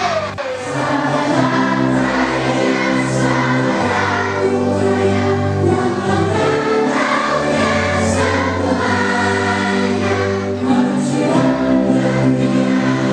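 Large group of schoolchildren singing a song together in unison, over a steady instrumental accompaniment that holds long chords and a low bass line.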